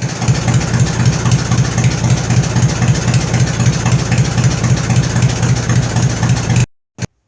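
An engine running steadily with a fast, even firing pulse. It cuts off abruptly near the end, followed by one short blip of the same sound.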